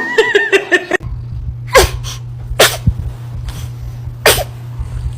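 A baby sneezing three times, about a second and a half apart. Each sneeze is a sharp burst ending in a short falling squeak, over a steady low hum.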